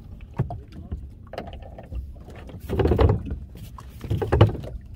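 Small fishing boat at sea: a steady low rumble of water around the hull, with two louder thumps about three seconds and four and a half seconds in.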